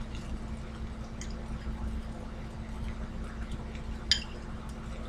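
Egg and onions sizzling faintly in a frying pan on an electric burner, with a few small pops, the clearest about four seconds in, over a steady low hum.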